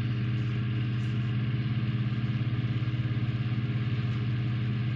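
A steady low mechanical hum, like a small motor running, with a fast even pulse in its loudness.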